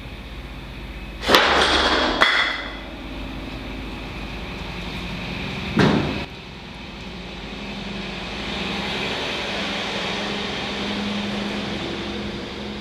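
Heavy steel clanks as the double frame rails of a Mack R-model truck are worked together. A loud clang comes about a second in with a scraping ring after it, a second follows soon after, and a third comes near the middle, over a low steady hum.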